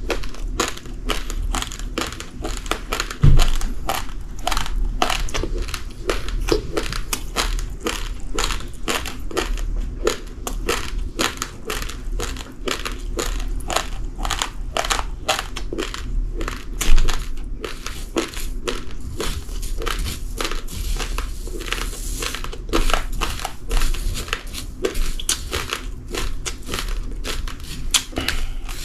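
Dry uncooked rice grains being chewed and crunched, a rapid, unbroken run of sharp crackling crunches. There are two louder knocks, about three seconds in and about seventeen seconds in.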